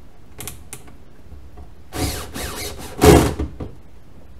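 Cordless drill run in short bursts at the toolbox's metal mounting bracket in a pickup bed: a brief blip, then two longer runs with the motor speed rising and falling, the last one the loudest.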